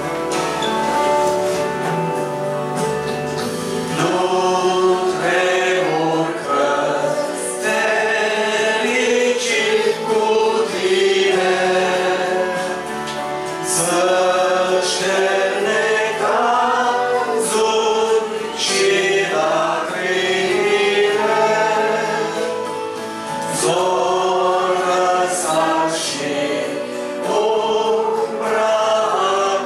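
Congregation singing a hymn in Romanian to instrumental accompaniment, the voices coming in about four seconds in after a short instrumental lead-in.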